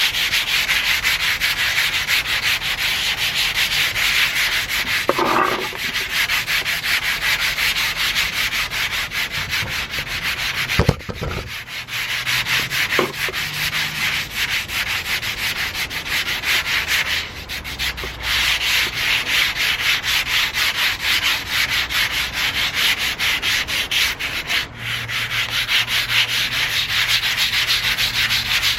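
Sandpaper on a hand block rubbed back and forth over the painted body of a 1991 Toyota MR2, a fast, steady run of short scraping strokes that breaks off briefly a few times.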